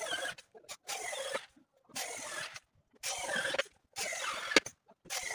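Corded electric drill run in about five short bursts of roughly half a second each, biting into wooden pallet boards.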